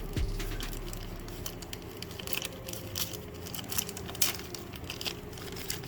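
Rustling and light clicks of small parts and packaging being handled and sorted by hand, scattered irregularly, over a steady low hum.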